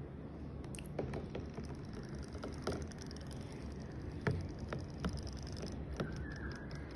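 Scattered light taps and small water splashes in a plastic tub as a battery-powered robotic toy fish flicks its tail in the water. There are about eight irregular clicks, the loudest about four seconds in.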